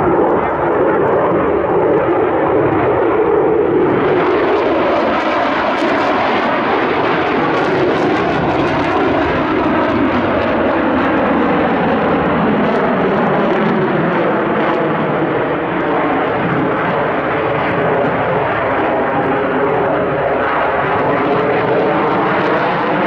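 Jet engine noise from a Sukhoi Flanker-family twin-engine fighter flying display manoeuvres: a loud, continuous rushing roar. In the second half its pitch bands sweep slowly up and down as the jet moves past.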